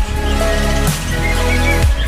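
Background music with a heavy bass line and a regular beat about once a second.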